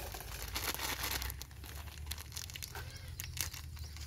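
A packet of fertilizer mix being crinkled and torn open by hand, with irregular crackling rustles.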